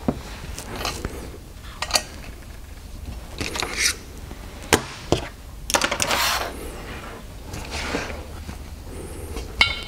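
Metal fittings being handled on a workbench: scattered clicks and knocks as the fill hose's threaded fitting is screwed onto an airgun regulator test sleeve, with a couple of short scraping rustles from the hose and hands.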